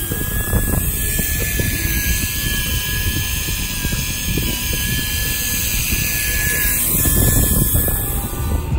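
Wind buffeting the microphone and a low rumble on a boat at sea, with a thin steady whine running through it that shifts in pitch about seven seconds in, while a heavy fishing reel winds in against a hooked fish.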